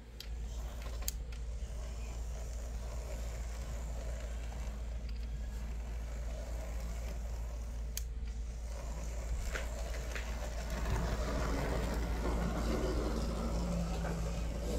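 Märklin Z-scale shunting locomotive running on its track: a faint whir and rattle from its small electric motor and gearing over a steady low hum, with a few sharp clicks. It grows louder about eleven seconds in.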